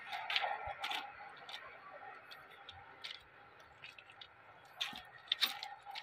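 Footsteps crunching on track ballast: a few irregular sharp clicks and crunches, the loudest about five and a half seconds in, over a faint steady outdoor background.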